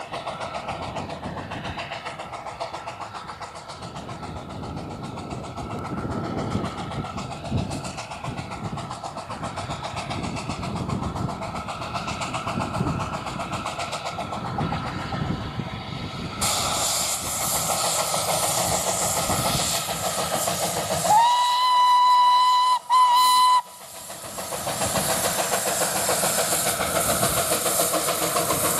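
Baldwin 2-4-2T narrow-gauge steam locomotive No. 762 'Lyn' working a train toward the microphone, its exhaust beats growing louder as it approaches. About three-quarters through, its whistle sounds one long blast followed by a short one, then the locomotive passes close with a hiss of steam.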